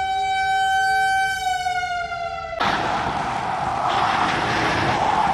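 A siren holding one steady high tone, then sliding down in pitch. About two and a half seconds in it cuts off abruptly and a loud steady rushing noise takes over.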